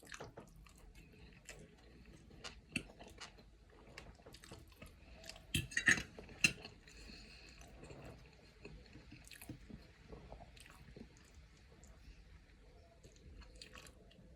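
A person chewing food close to the microphone, with scattered clicks of cutlery and dishes; a short run of louder clinks comes about six seconds in.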